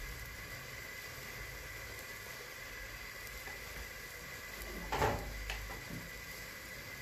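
Large pot of salted water at the boil, a faint steady bubbling hiss, as squares of rolled dough are dropped in by hand. About five seconds in comes a brief louder clatter, followed by two smaller ones.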